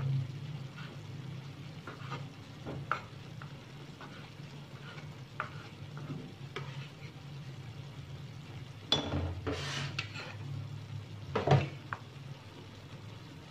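Kitchen knife slicing strips of thin fried egg on a wooden cutting board, with occasional soft taps of the blade on the board. Two louder clatters with scraping near the end as the cut strips are gathered into a china bowl, over a low steady hum.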